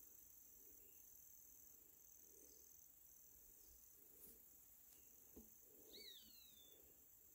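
Faint countryside ambience: an insect trilling high in repeated phrases of about a second with short breaks, and a brief bird call sliding down in pitch about six seconds in.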